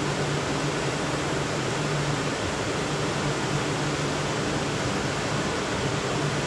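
Steady droning hiss with a low, unchanging hum underneath: a tanker ship's machinery and ventilation running, heard on the open deck.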